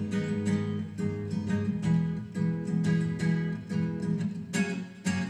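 Nylon-string classical guitar strummed in a steady rhythm, its chords ringing between strokes, as an instrumental break between sung lines.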